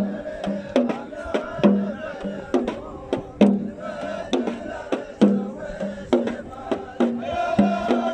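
Omani razfa: a group of men chanting together over drums beating a steady stroke about once a second.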